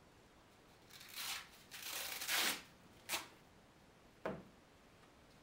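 Sandpaper disc on a Rockford hand sanding block rubbed along a wooden board's edge, in a few separate strokes, the longest and loudest about two seconds in. A brief sharp sound follows near the end.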